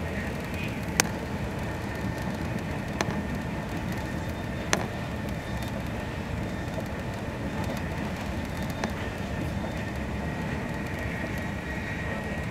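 Steady rumble of a TGV high-speed train running at speed, heard inside the passenger car, with a faint steady whine. A few sharp clicks stand out over it, about a second in, near three seconds, near five seconds and near nine seconds.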